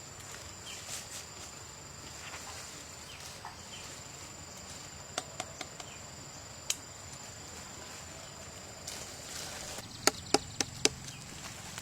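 Insects, likely crickets, shrilling steadily on two high tones. A few sharp clicks come about halfway through, then a quick run of four or five loud knocks near the end.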